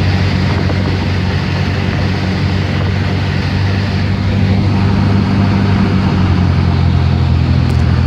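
Cessna 172's piston engine and propeller droning steadily, with a slight change in pitch about five to seven seconds in.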